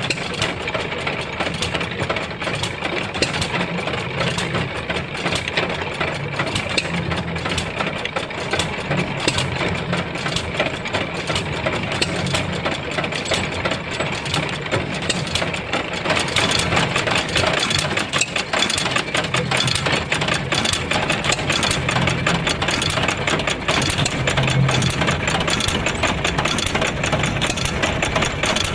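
A 3/4 HP Bluffton hit-and-miss stationary engine running steadily, belt-driving a wooden washing machine, with the rapid clatter of the washer's mechanism. The sound gets a little louder and brighter about halfway through.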